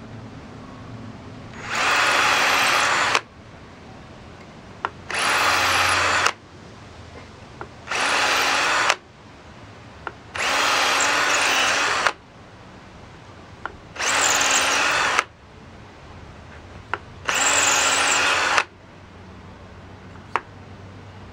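Cordless drill boring a small bit into a stone pipe block of yellow wonderstone, run in six short bursts of about one to two seconds each. Between bursts there are a few faint clicks while the bit is pulled out to clear the stone dust, so that it does not clog and crack the pipe.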